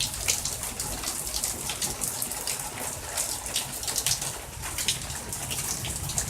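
Heavy rain falling and splattering close by, with many sharp drip and splash clicks over a steady wash of rain.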